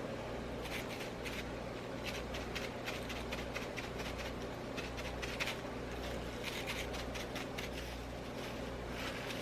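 Faint scratching and ticking from hand work on small plastic flowers while painting them, in short irregular clusters, over a steady low hum.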